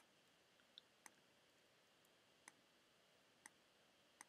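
Five faint single computer clicks, spaced about a second apart. Each click places a point on a shape being outlined.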